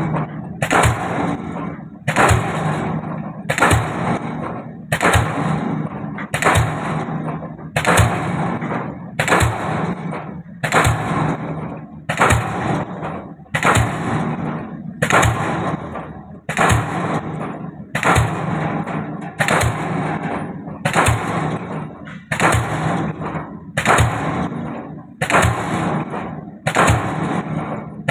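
DD-25 diesel pile hammer driving a concrete pile, striking in a steady rhythm of about one blow a second. Each blow is a sharp bang with a short ringing tail.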